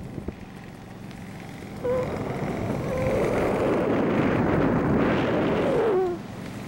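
Wind buffeting the camera microphone high up on a parasail. It gets louder about two seconds in and eases near the end, with a few short whistling tones and a longer one that falls in pitch as the gust ends.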